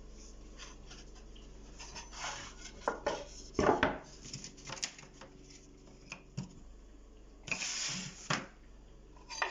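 Engraved sample pieces being handled and set down on a hard surface: scattered clacks and knocks, the loudest about three and a half seconds in. A short rub or scrape follows near the end.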